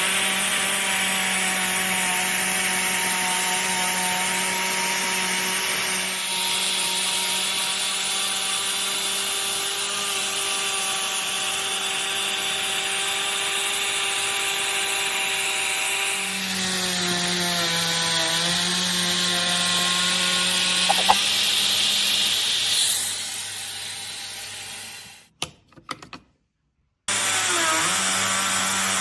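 Parkside 12 V cordless trim router running with a steady high whine. From about 16 to 23 seconds in, the motor pitch sags and a rasping hiss rises as the bit cuts into wood under load. It then spins down and stops, and starts up again about two seconds later.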